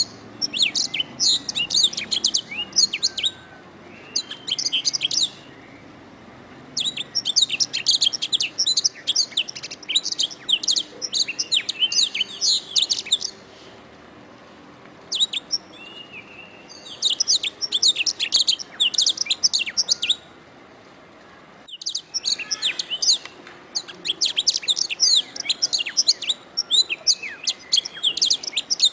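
Domestic canary singing long, rapid trilled phrases of high chirps, broken by short pauses, with an abrupt cut a little past two-thirds of the way through.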